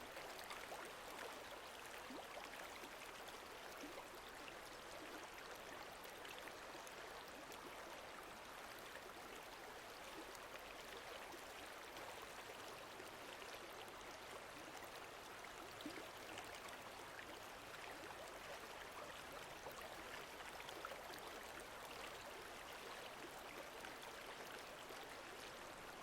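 Faint, steady lake water moving and lapping, with many small splashes and drips through it.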